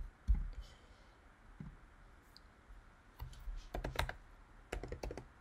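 Computer keyboard typing: a couple of single keystrokes, then quick runs of key clicks about three seconds in and again near the end, as a web address is typed.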